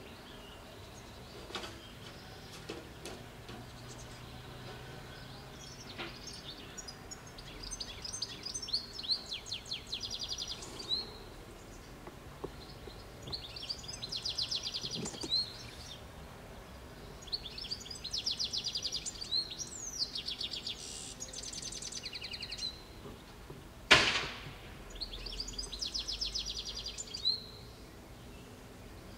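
Outdoor ambience with a songbird singing a repeated song: four or five high, rapid trilled phrases of a few seconds each, with short pauses between. A single sharp knock about three-quarters of the way through is the loudest sound.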